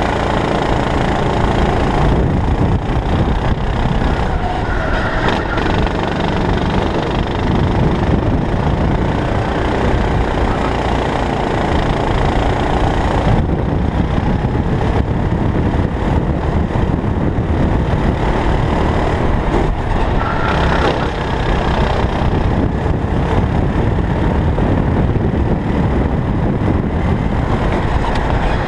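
Onboard sound of a Sodi racing kart at speed: the engine running hard under load with road rumble and wind noise on the mounted camera's microphone, steady and loud with no breaks.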